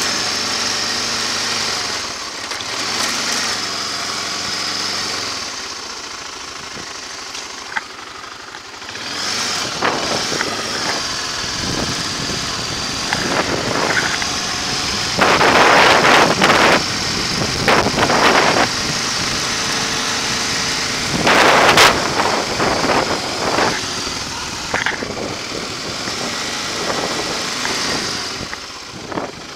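Vehicle engine running steadily while riding slowly along a town street, with several loud, brief rushing bursts around the middle.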